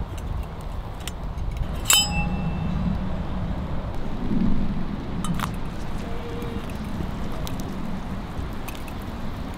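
A steady low rumble of wind on the microphone, with one sharp metallic clink of the steel billy can about two seconds in and a fainter click a few seconds later.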